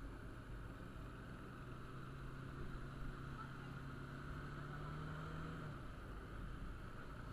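Motorcycle engine running while riding, over a steady low rumble. Its note climbs slowly in pitch for a few seconds as the bike accelerates, then drops away suddenly about two-thirds of the way through.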